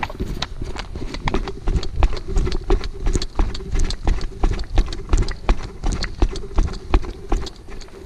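A person running over grass and leaf litter: quick, even footfalls, about three to four a second.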